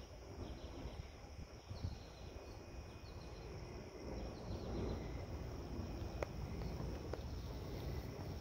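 Insects, likely crickets, trilling steadily in a high thin tone, with faint short chirps above an uneven low rumble.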